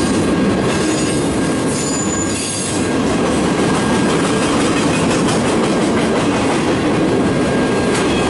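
Cars of a CN freight train rolling past on the rails in a steady, loud rumble. A brief high-pitched wheel squeal comes about two seconds in.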